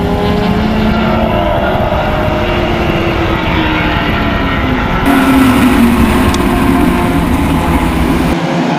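Several race cars running at high revs, their engine notes overlapping and falling in pitch as they go by. The sound changes abruptly about five seconds in and again near the end.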